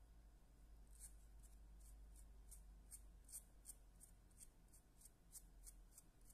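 Faint, crisp ticks and scratches, about two to three a second, from fingers working a bunch of deer hair and tying thread at a fly-tying vise, over a low steady hum.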